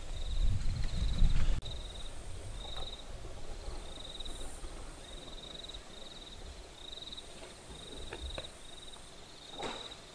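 A cricket chirping steadily, a short high chirp about every two-thirds of a second. A low rumbling noise in the first second and a half stops abruptly, and there are a few faint rustles near the end.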